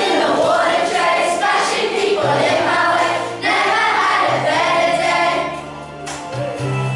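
A group of primary-school children singing together as a choir, with steady low accompaniment notes underneath from about two seconds in.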